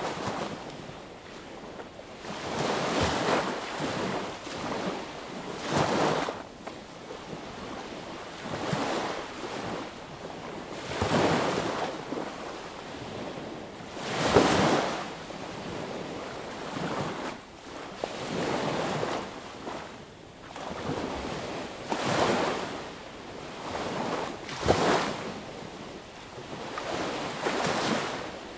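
Small sea waves breaking and washing up on a beach, one wash every two to three seconds at an uneven pace, each swelling and fading away.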